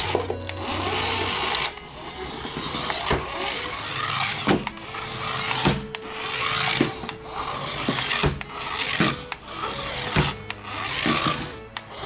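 Small electric motor and gears of a toy remote-control car whirring in short runs, starting and stopping every second or so as it is driven, with sharp clicks in between.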